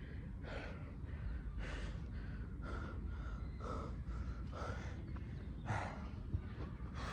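A man breathing hard, with a sharp, heavy breath about once a second: he is out of breath from exertion.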